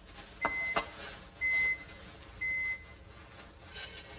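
An electronic beeper sounds three short, steady beeps about a second apart, with a few light clinks of kitchen utensils in the first second.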